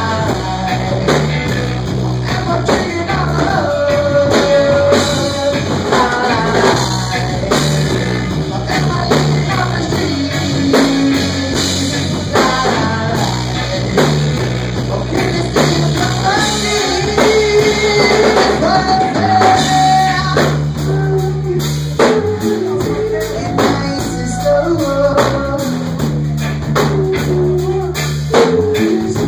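Live reggae-rock band playing: a singing voice over electric guitar, electric bass and a drum kit.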